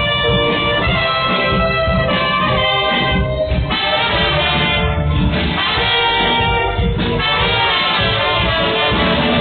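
Live band music with brass-like held notes over a steady bass and drums.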